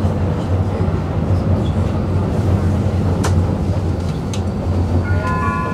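Tram running on rails with a steady low rumble, two sharp clicks in the middle, and a short bright tone starting near the end.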